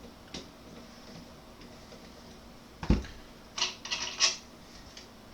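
Handling noises from a Ruger 10/22 rifle being taken apart from its stock: a solid knock about three seconds in, then a quick run of scrapes and clicks.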